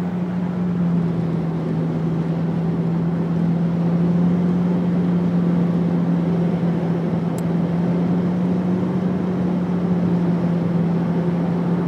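Cabin noise of a 2011 Nissan Juke with a 1.6-litre turbo four and a Stillen axle-back exhaust, speeding up from 75 toward 80 mph: a steady wind and road rush over a low, even exhaust drone, growing a little louder over the first few seconds. The wind noise is louder than the exhaust.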